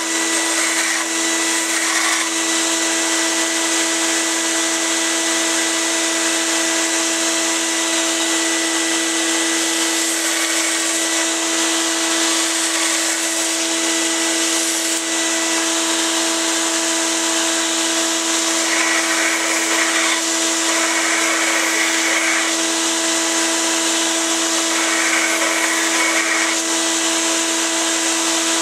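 Belt sander running steadily with a constant motor hum while a stainless steel knife blank is ground against the sanding belt to shape its profile. The grinding hiss swells several times in the second half as the steel is pressed harder to the belt.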